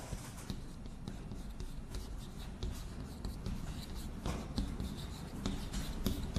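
Chalk writing on a blackboard: a string of light taps and scratchy strokes as Chinese characters are written, over a faint low hum.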